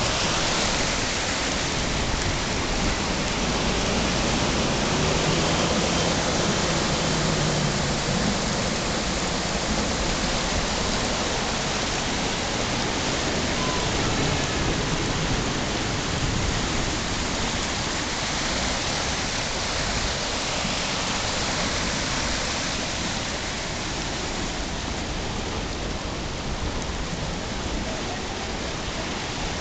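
Heavy rain falling steadily onto a flooded street, a dense even hiss of rain on standing water that eases slightly in the last few seconds.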